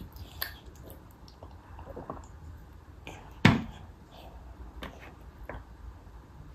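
A toddler eating with her fingers: faint wet chewing and squishing sounds with a few small clicks. One sharp knock about three and a half seconds in.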